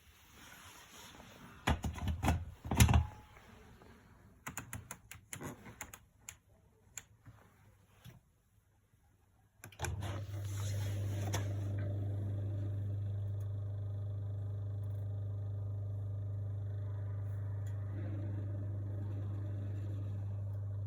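Miele laundry machine: a few clicks and knocks, then about ten seconds in a steady low mechanical hum starts and keeps running. This hum is the strange noise the machine is making.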